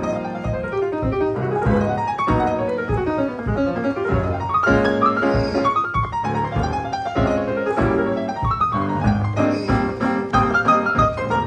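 Keyboard solo in piano voice: fast runs that climb and fall, with full chords, played without a break.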